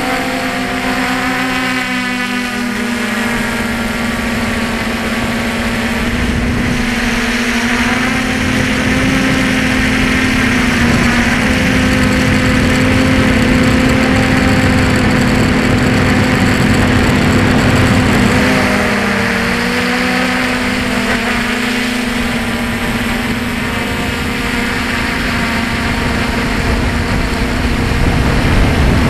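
Electric motor and propeller of an FPV aircraft, heard through its onboard camera: a steady hum over a rush of air. The pitch wavers up and down about two seconds in and again about twenty seconds in.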